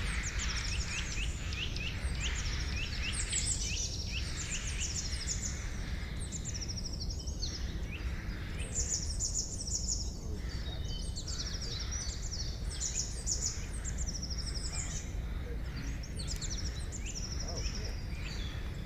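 Forest birds chirping: several songbirds give quick trills of short, high, downward-sliding notes that overlap and repeat throughout, over a steady low rumble of background noise.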